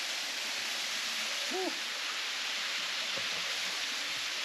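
A small waterfall pouring into a pool, a steady rush of water. A brief rising-and-falling pitched sound comes about one and a half seconds in.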